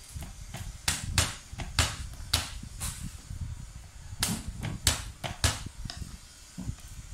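Garlic cloves being peeled by hand: about ten sharp, crackling snaps of the dry papery skin, in two bursts, over low handling noise against the table.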